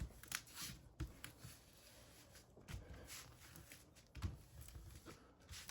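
Faint, scattered rustles and light taps of hands smoothing a diamond painting canvas and its plastic cover flat to press the air out.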